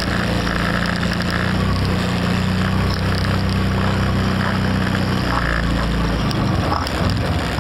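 ATV (quad bike) engine running steadily, heard up close from the machine being ridden. About six seconds in its note changes and becomes uneven as the quad works over rough, rocky ground.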